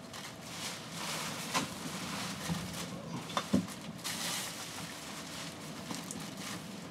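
Plastic bags and rubbish rustling as they are handled and sorted by hand, with a few small knocks.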